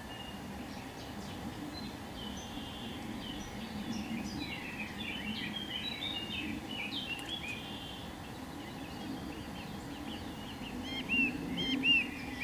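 Several small birds chirping and twittering over a steady low background rumble. Near the end a bird gives four or five louder, clear, arched call notes in quick succession.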